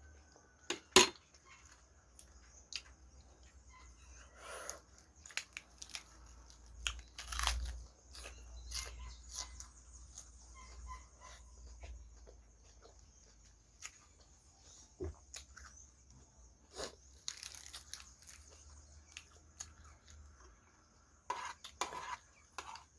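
A person eating curry and rice close to the microphone: chewing and mouth sounds with scattered sharp clicks and crunches, the loudest about a second in.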